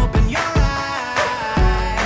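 Background music: a song with a steady beat, deep bass hits and a sung melody.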